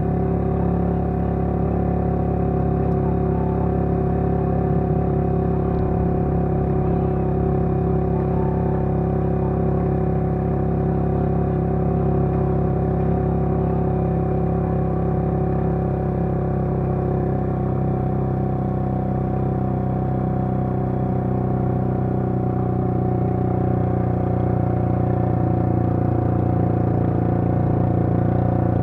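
A motor vehicle's engine running at a steady cruising speed, a constant low drone whose pitch shifts slightly about two-thirds of the way through.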